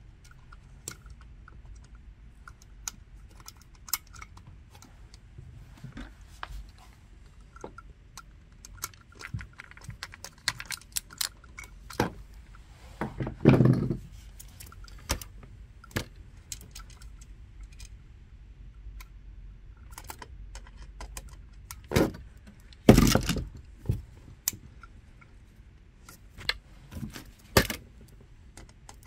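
Scattered small clicks and metallic rattles from handling a new electrical wall receptacle and its wires in the box. There are two louder scraping bumps, about halfway through and again about two-thirds of the way through.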